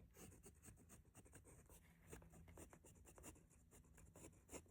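Faint scratching of a fountain pen's extra-fine steel nib writing on paper, a quick series of small strokes.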